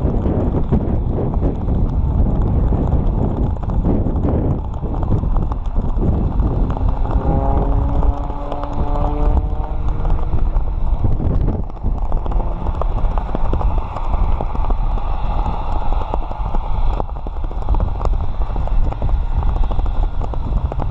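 Wind buffeting the microphone in a steady low rumble, with many quick flapping knocks. About seven seconds in, a faint rising tone comes through for a couple of seconds.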